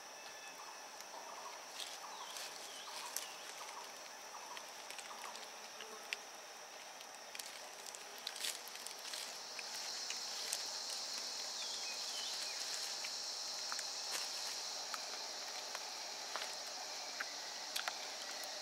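Forest insects keep up a steady high-pitched drone that gets louder about ten seconds in, with scattered light clicks and crackles over it.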